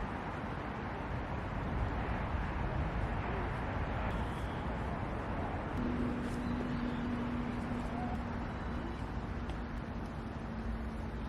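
Steady outdoor background rumble with no distinct events. A single steady low hum joins about six seconds in.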